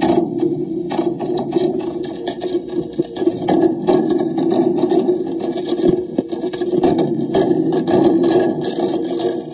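A mini slinky mounted on a homemade horror noise box, stretched and bouncing, amplified through the box's distortion and echo. It makes a loud, dense scraping, rattling noise shot through with many sharp clicks.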